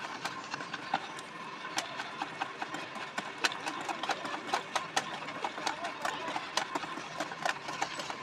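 Wire whisk beating a thick besan batter in a plastic bowl: rapid, irregular clicks and taps of the whisk wires against the bowl's sides, with the soft slap of the batter.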